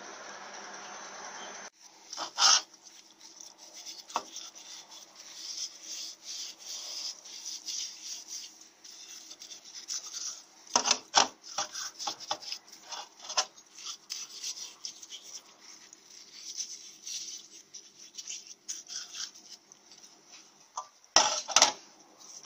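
Stiff bristle brush scrubbing a differential pinion yoke flange in a solvent-filled parts-washer tray: an irregular scratchy rasping with a few sharp knocks of the part against the metal. For the first second and a half a lathe runs steadily, then cuts off abruptly.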